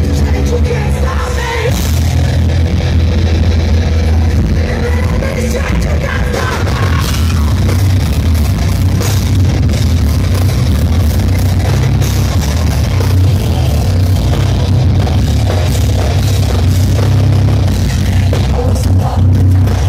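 Live heavy metal band playing loud, with a booming low end that dominates the sound.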